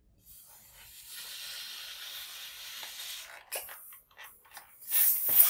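Hiss of forceful breath blown by mouth into a long latex twisting balloon as it inflates, steady for about three seconds, with a louder rush of air near the end.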